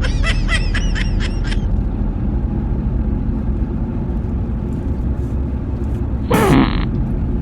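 Car cabin rumble from the engine and road. Over it, a quick run of high squeaky chirps for the first second and a half, then about six seconds in a short, loud, raspy fart that drops in pitch.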